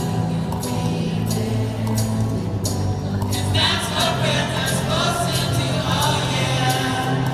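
Gospel choir singing over instrumental accompaniment with recurring percussion hits; the voices come in strongly about three and a half seconds in.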